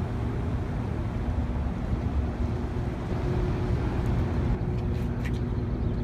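Boat motor running steadily with a low rumble and a faint steady hum over the noise of the water.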